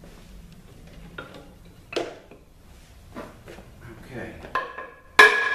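Metal transmission parts and hand tools clinking and knocking as they are handled during a ZF 5HP24 automatic transmission teardown, ending near the end with a loud metallic clang that rings on for about a second.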